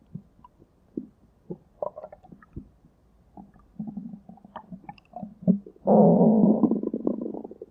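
A person's stomach growling: scattered small gurgles and pops, then about six seconds in a loud, long, muffled rumble that tapers off.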